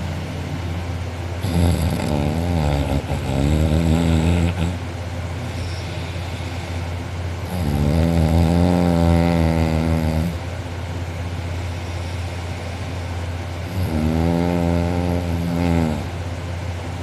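A man snoring loudly in deep sleep through an open mouth: three long snores about six seconds apart, each lasting two to three seconds, over a steady low hum.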